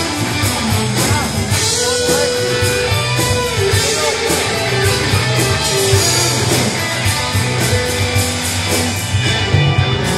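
Live blues-rock band playing: electric guitars, bass, keyboard and drum kit together over a steady drum beat.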